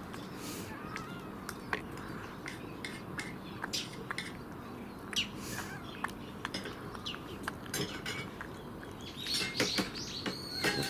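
Cats eating from food dishes: scattered clicks and taps of food and dish, with a few short chirping calls.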